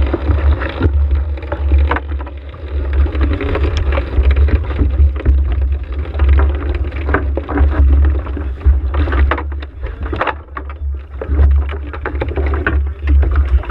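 Low rumble of wind and water buffeting a camera mounted on the deck of a hydroplane at rest on the water, with frequent irregular knocks and splashes of water slapping against the hull.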